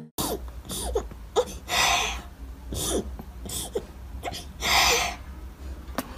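Several short breathy huffs with brief, falling whimpering sounds between them.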